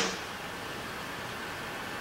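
The last sampled drum hit dies away at the very start, leaving a steady hiss of background noise.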